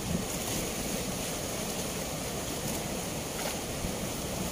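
Fast, turbulent water rushing steadily below a barrage's sluice gate, with wind buffeting the microphone.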